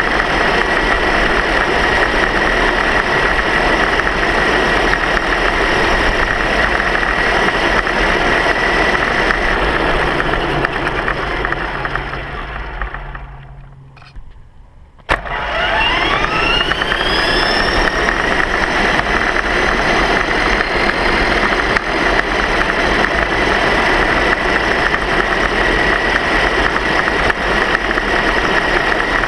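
Steady high motor whine with road and wind noise from the small vehicle carrying the camera. It winds down almost to silence a little before the middle, then starts again suddenly, the whine rising in pitch over a few seconds as it speeds back up and settling into a steady note.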